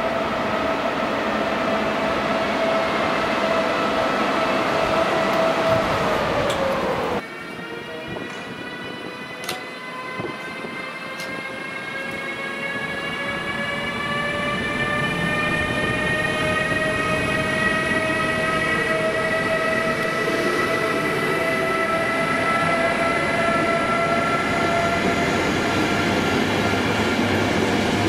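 Electric locomotive hauling passenger coaches, its traction motors whining in a chord of several tones over the rumble of wheels on the rails. The whine holds steady and sags slightly, then breaks off abruptly about seven seconds in. After that it rises steadily in pitch and grows louder as the train gathers speed.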